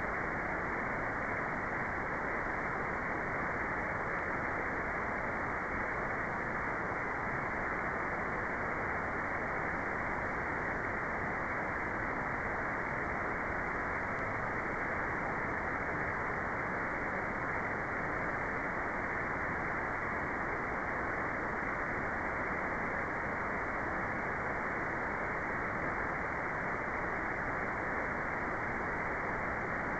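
Steady synthetic noise, an even hiss that stays unchanged, with its energy below about 2 kHz so it sounds duller than full white noise.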